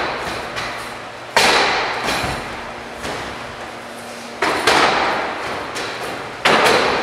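A metal hook ladder bangs loudly against the window sills of a training tower, several sharp strikes roughly every one to two seconds. Each bang echoes in the large hall.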